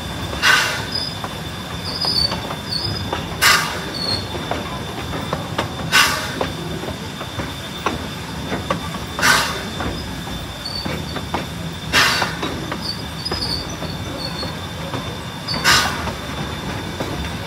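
A steam-hauled amusement-park train running, heard from a car behind the locomotive: a steady rumble of wheels on track, broken by a short loud clatter about every three seconds.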